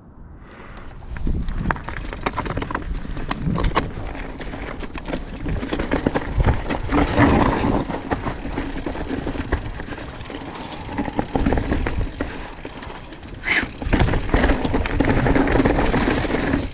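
Mountain bike riding down a rocky trail: a constant clatter of tyres knocking over rocks and roots, with the chain and frame rattling. It gets louder about a second in and briefly drops away near the end.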